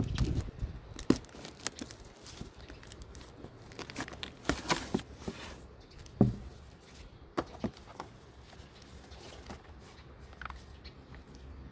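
Packaging being torn open and handled: tearing and crinkling rustles with scattered clicks and knocks.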